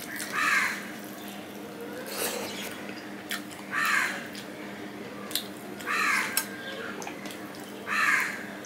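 A crow cawing four times, each harsh caw about half a second long and a few seconds apart. Underneath, the soft sounds of fingers mixing rice and curry in a steel plate, with a few small clicks.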